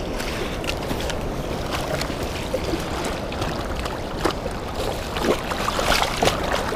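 Steady rush of high river water with splashing from a hooked walleye thrashing at the surface. The splashes come thicker near the end as the fish is brought to hand in the water.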